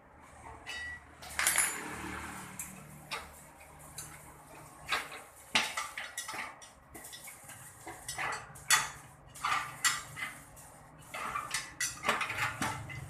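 Es puter ice cream machine with its stirrer running: irregular metallic clinks and clatters over a low motor hum.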